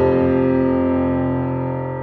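Background music: a held chord on a guitar-like instrument that slowly fades.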